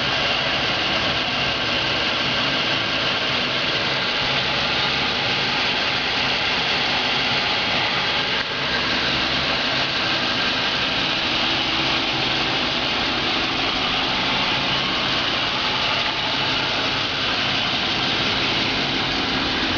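2009 Dodge Charger's Hemi V8 idling steadily.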